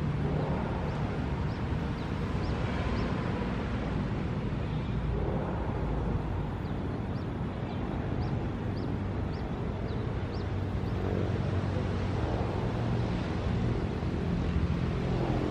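Steady low rumble of outdoor ambience by a railway track, with a small bird giving a run of short high chirps, about two a second, around the middle.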